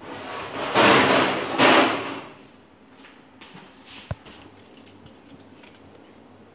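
Kitchen handling noises on a steel counter: two loud rustling swishes about a second in, a sharp click a little after four seconds, then only faint background.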